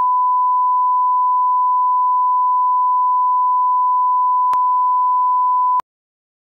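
A steady 1 kHz line-up tone, the reference test tone that plays with SMPTE colour bars. There is a faint click about four and a half seconds in, and the tone cuts off suddenly near the end.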